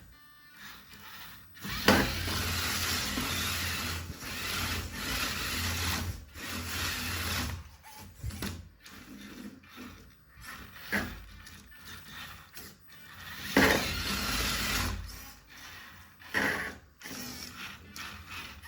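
Small RC toy car's electric motor and gearbox whirring and grinding in spurts of several seconds, with a sharp knock near the start and another past the middle.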